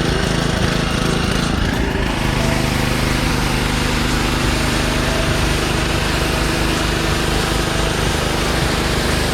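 Honda GC160 single-cylinder engine running a Karcher pressure washer pump. About two seconds in, a hiss of water spray comes in and the engine note settles to a steady pitch, running smoothly under load without surging.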